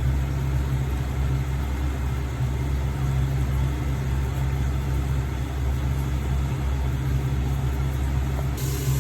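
A steady, even, low hum with a faint haze of noise over it, like a motor or fan running.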